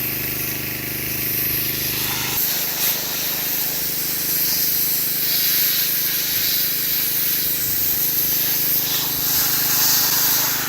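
Pressure washer jet spraying a fish to strip its scales: a loud, steady hiss of spray over the machine's hum, which shifts in pitch about two seconds in.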